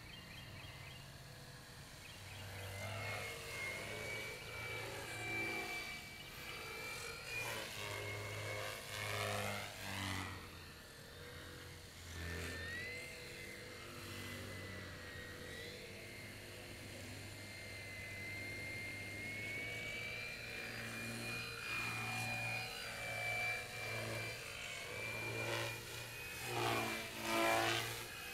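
Small RC foam airplane's brushless outrunner electric motor and 12x6 propeller whining in flight, its pitch wandering up and down with the throttle. The sound swells and sweeps as the plane passes close, loudest near the end.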